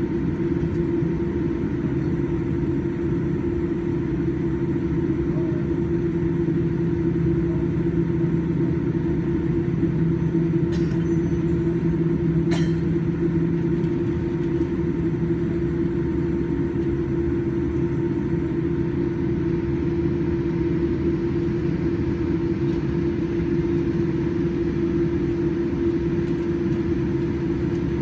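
Boeing 787-9 engines idling on the ground, heard from inside the passenger cabin: a steady hum with a constant drone over a low rumble. There are a couple of faint clicks about eleven and twelve seconds in.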